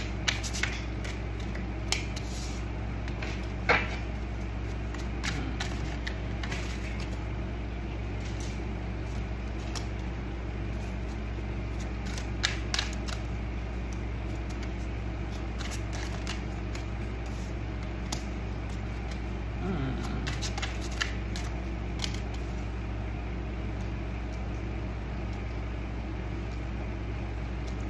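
Tarot cards being drawn from a deck and laid down on a wooden desk: scattered short clicks and soft slaps over a steady low hum.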